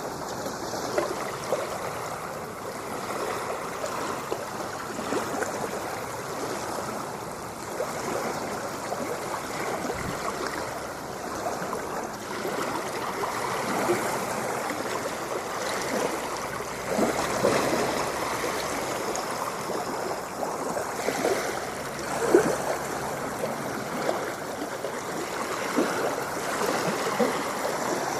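Water splashing and gurgling in a steady, continuous wash, with a slight swell in the middle and one sharper splash about three-quarters of the way through.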